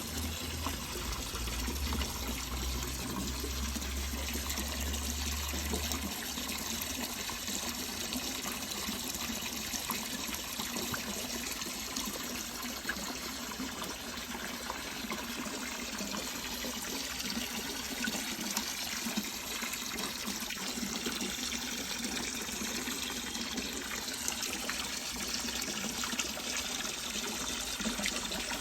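Water running steadily into or out of a fish-rearing water tank, an even trickling and splashing. A low hum sounds under it and stops about six seconds in.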